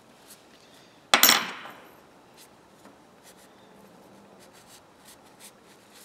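A small metal ratchet part clinks sharply against metal about a second in, with a brief high ring as it dies away. Around it, faint rubbing and light ticks of a shop towel wiping the small parts.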